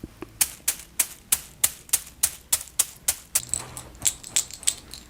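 A steady series of sharp clicks, about three a second. From about three and a half seconds in, a high metallic jingle rings along with them.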